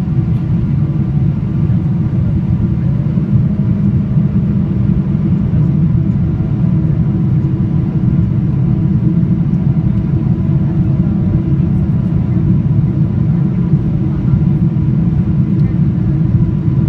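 Steady low drone of a Boeing 777-300ER in flight, heard inside the cabin at a window seat over the wing: the GE90 engines and the air rushing past the fuselage make an even, unbroken rumble with a faint steady hum on top.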